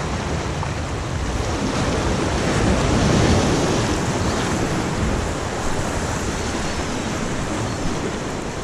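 Surf washing and breaking against the jetty's rocks, mixed with wind buffeting the microphone; the wash swells a little about three seconds in.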